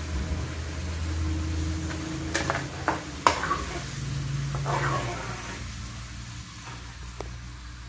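Kitchen background: a low steady hum, with three sharp clicks or knocks about two and a half to three and a half seconds in, the last the loudest.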